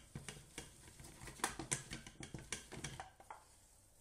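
Wooden spoon working thick choux paste (panade) in a stainless-steel saucepan: irregular soft knocks and scrapes, several a second, thinning out near the end.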